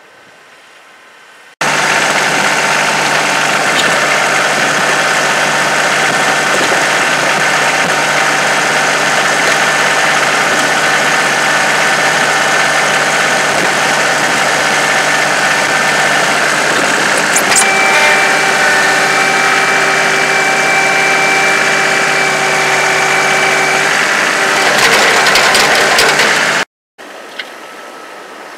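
John Deere compact tractor's three-cylinder diesel engine running steadily under load while plowing snow, heard close up. About two-thirds of the way in, a higher whine joins for several seconds. The sound then turns rougher and drops abruptly to a faint, distant engine with wind.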